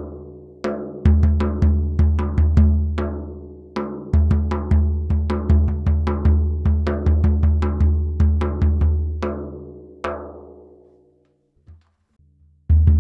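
Frame drum struck in a steady pattern of several strokes a second, each stroke giving a deep, ringing bass tone under a short bright slap, recorded through a Shure SM57 dynamic microphone. The playing stops about eleven seconds in and starts again after a short silence near the end.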